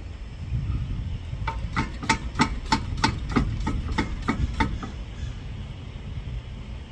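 About a dozen hammer strikes on metal, roughly three a second, each with a short ring, starting about a second and a half in and stopping near the five-second mark: hammering at a seized wheel hub to free it.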